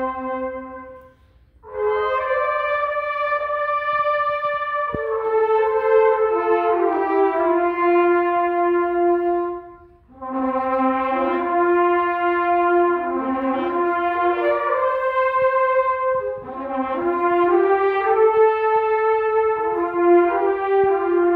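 A trumpet choir playing held chords in slow phrases, the chords moving step by step, with short breaths between phrases about a second in and halfway through.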